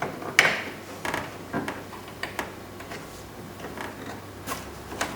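Small flat-blade screwdriver prying up the plastic retaining tabs of a car's interior door handle cup: a series of sharp plastic clicks and taps, the loudest about half a second in.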